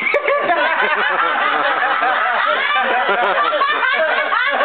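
Several people laughing together without a break, chuckles and snickers overlapping.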